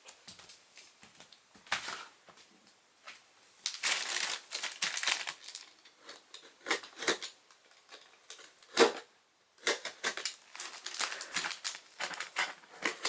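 A cardboard shipping box being opened by hand: irregular clicks, scrapes and crackling rustles of cardboard and packing, with one sharp snap about two-thirds of the way through.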